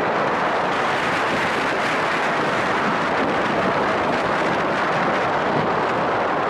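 B&M hypercoaster train running at speed: a steady rush of wind on the microphone mixed with the rumble of the train's wheels on the steel track.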